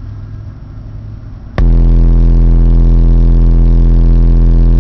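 A steady, very loud deep test tone from a Belva BB5000D amplifier driving NVX VCW 12-inch subwoofers. It cuts in suddenly about a second and a half in and holds without change, full of overtones. The amp is being pushed to clamp its output power, about 1800 watts. Before the tone there is a low steady rumble.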